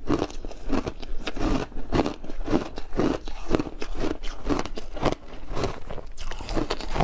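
Chewing crunchy food close to the microphone: a steady run of crisp crunches, about three a second.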